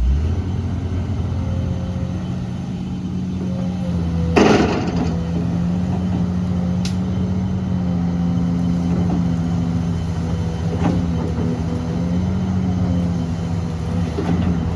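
Heavy earthmoving machine's engine running steadily at work, with a loud clatter about four seconds in and a couple of lighter knocks later.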